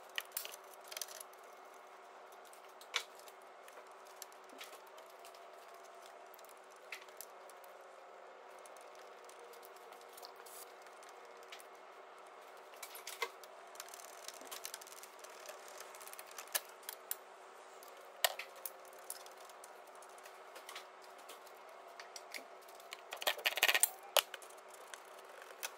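Small metallic clicks, taps and scrapes of hand tools and metal fittings as the 10mm nuts on the air-con pipes are undone and the pipes are worked out of the condenser, over a faint steady hum. The clicks are scattered, with a quick cluster of them near the end.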